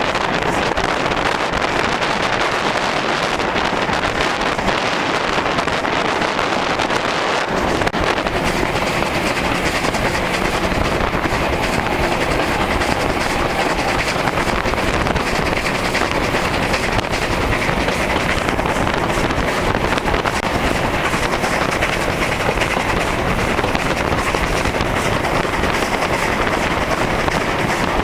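Ivatt steam tank locomotive on the move, heard from its footplate: a steady rush of running noise from the engine and wheels on the rails, with wind on the microphone. The sound gets heavier and fuller about seven seconds in.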